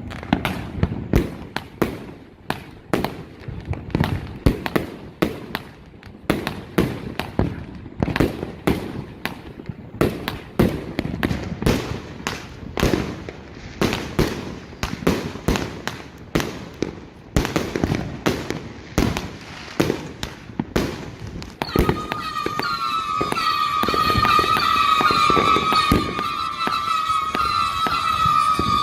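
A 260-shot King Flame fireworks cake firing a rapid barrage of shots, roughly two a second. About three quarters of the way through it changes to a louder stretch of overlapping high whistling over continued bangs.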